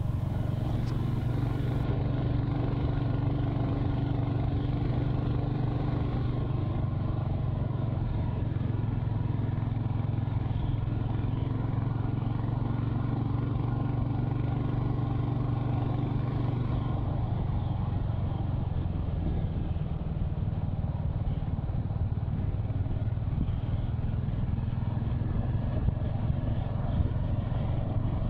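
Royal Enfield Hunter 350's single-cylinder engine and exhaust running steadily at cruising speed from the rider's seat, a new engine still being run in. Wind noise comes through, damped by a wind muff on the microphone.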